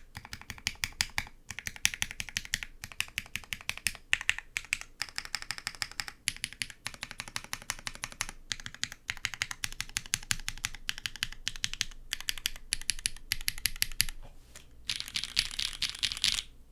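Fast typing on a Merisi Dodici custom mechanical keyboard with a carbon-fibre plate, Cherry BCP switches and GMK keycaps: rapid key clacks in runs broken by brief pauses, stopping just before the end.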